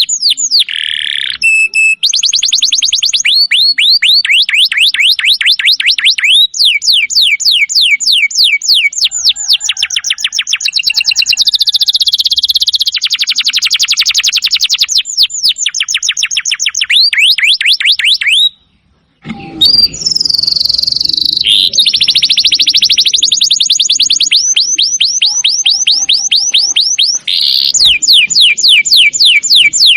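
Domestic canary singing long, fast trills of rapidly repeated chirping notes, one roll running into the next, with a brief silent break just past the middle.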